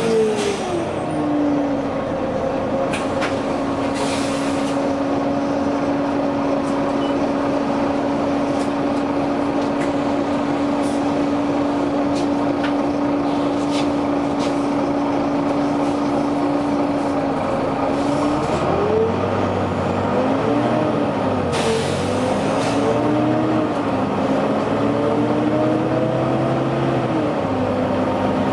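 Volvo B9TL double-decker bus with its 9-litre diesel: the pitch falls as it slows, then holds a steady tone while standing, with short hisses of air about 3 and 4 seconds in. About 18 seconds in, engine and transmission tones rise and fall as the bus pulls away through the gears, with a longer air hiss a few seconds later.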